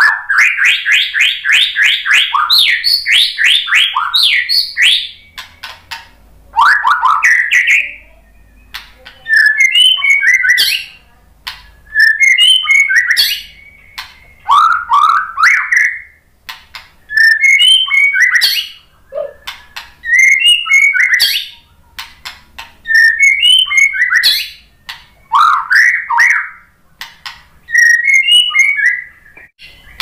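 Male white-rumped shama singing: a long run of rapid whistled notes over the first few seconds, then short, varied whistled phrases repeated every two to three seconds, with sharp clicks between them.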